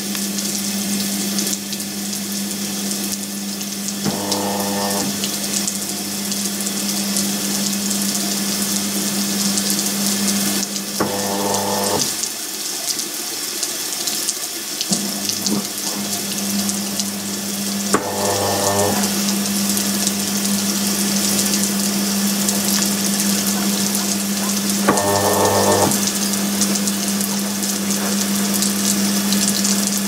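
Haier top-load washing machine spinning a load of towels while spray-rinsing: a steady hiss of water jetting onto the spinning tub over a constant low hum. The hum drops out for a few seconds just past halfway, and a short buzz sounds four times, about seven seconds apart.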